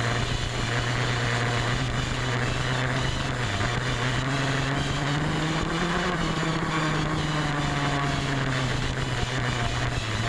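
Dirt bike engine running as the bike is ridden along a dirt motocross track. The engine note dips briefly about three and a half seconds in, rises around six seconds and eases back near eight and a half seconds.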